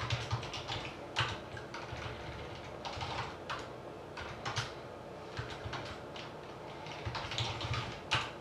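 Typing on a computer keyboard: irregular short runs of keystroke clicks with pauses between them.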